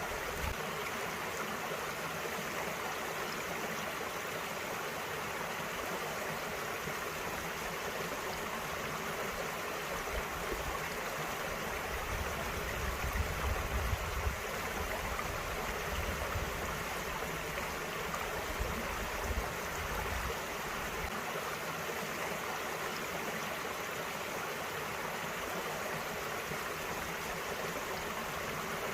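Small valley stream flowing steadily, a continuous babbling rush of water.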